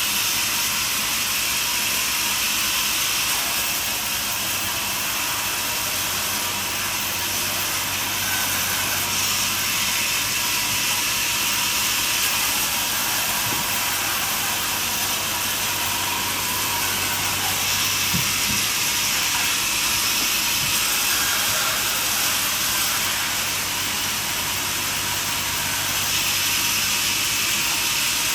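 Portable band sawmill running steadily, a continuous high rushing noise with no break.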